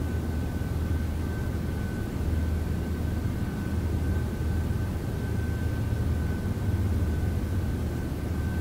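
Steady low hum and rumble, with a faint constant high-pitched tone above it, unchanging throughout.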